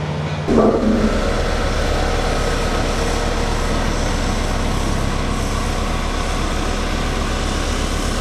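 Diesel engine of a Caterpillar single-drum road roller running, with a fast, steady low pulsing throughout.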